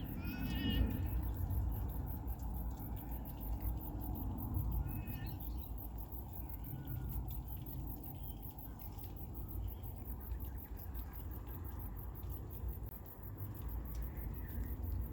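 Suburban outdoor ambience: an insect trilling steadily in a fast, even, very high-pitched pulse over a low rumble. Short bird calls break in about half a second in, around five seconds in, and near the end.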